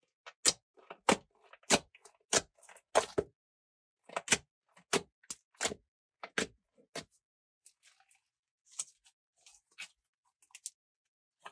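Glossy slime coloured with lipstick and makeup, pressed and poked by fingers and then folded, giving a series of sharp pops and clicks. The pops come about two a second for the first several seconds, then turn fewer and fainter.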